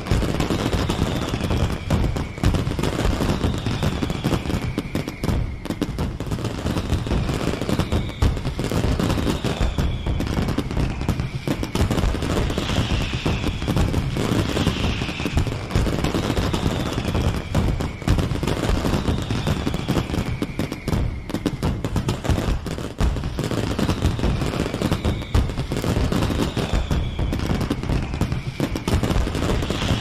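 Fireworks sound effect: continuous rapid crackling and popping bangs, with a short falling whistle every couple of seconds.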